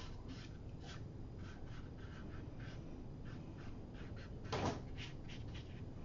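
Watercolour brush dabbing and flicking short grass strokes onto paper: a quick, uneven series of soft scratches, with one louder thump about four and a half seconds in.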